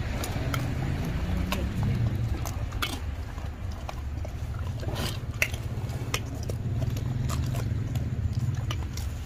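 Two sloth bears eating peanuts off a concrete floor: irregular sharp crunches as they chew, over a steady low rumble.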